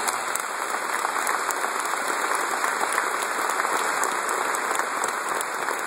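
Audience applauding steadily, a sustained even clapping from a large seated crowd, picked up on a mobile phone's microphone.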